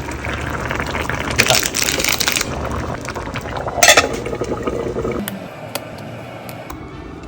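Cooking in a pot: liquid being poured and stirred, with a utensil scraping and knocking against the pot, one sharp knock about four seconds in.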